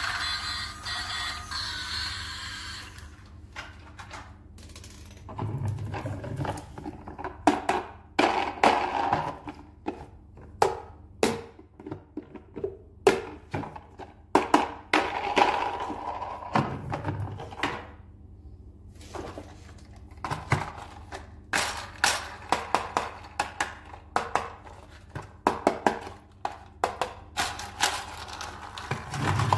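Hard plastic toys handled and set down on a table: a string of irregular clacks and knocks, with a few heavier thuds. A short electronic toy tune at the start cuts off about three seconds in.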